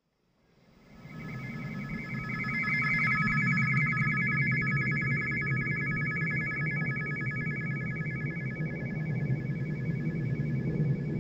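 Electronic drone presented as the fly-by sound of a Russian satellite: a low rumble under a chord of several steady high tones, fading in over the first couple of seconds and then holding steady.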